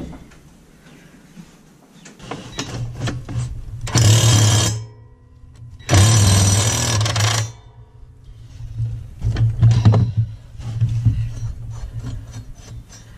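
Power impact tool hammering on a lawn mower blade bolt in two bursts, one about four seconds in and a longer one about six seconds in, loosening the bolt; lighter rattling and scraping of the tool and mower in between and afterwards.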